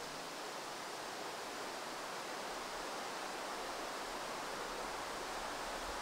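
Steady, even outdoor background hiss with no distinct events: no tapping, drumming or calls stand out.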